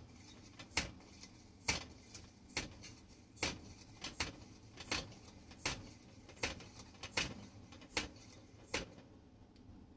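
Hand air pump of a Petromax 829 kerosene lantern worked in steady strokes, a short sharp click-and-rush about once a second, forcing air through the check valve into the fount to build pressure. The strokes stop about a second before the end. Fount pressure pushes the pump handle back out, which the owner takes to mean the check valve still lets some pressure escape.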